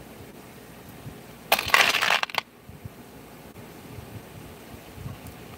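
Small metal parts clattering into a plastic bin, one jangling burst just under a second long about a second and a half in.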